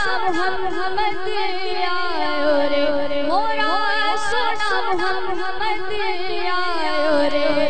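A boy singing a naat, an Urdu devotional song, in a high voice with long gliding, ornamented phrases over a steady held drone tone.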